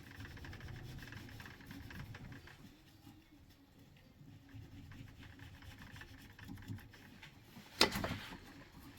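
Faint workbench handling noises, small knocks and rubs of parts and tools being moved, with one sharp click a little before the end.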